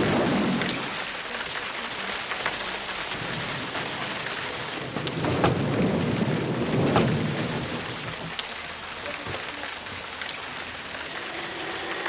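Steady rain falling, with low rumbles of thunder: one dies away in the first second, and another swells between about five and seven and a half seconds in.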